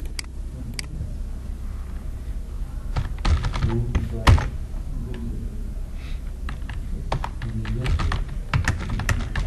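Typing on a computer keyboard in two bursts of key clicks, about three and about seven seconds in, with one louder keystroke just after four seconds. Two single clicks come near the start.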